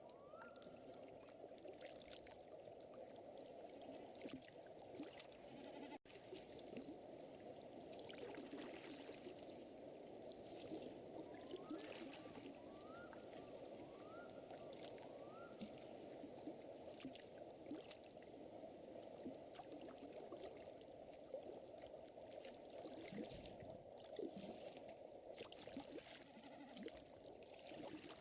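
Faint nature ambience: a fire crackling, with scattered sharp snaps, over a steady water-like wash, and a few short rising chirps about twelve seconds in.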